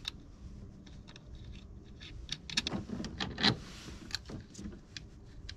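Scattered light clicks and knocks of a battery cable clamp and its wires being handled and fitted onto a boat battery's terminal post, busiest in the middle.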